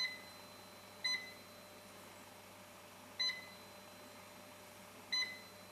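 Touchscreen control panel of a PCB sawing machine giving short high beeps as keys are pressed: four identical key-press beeps at uneven intervals while the sawing offset is entered.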